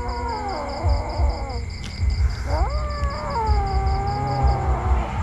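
A cat meowing: two long drawn-out meows, the first sliding down in pitch, the second rising sharply and then holding and slowly falling.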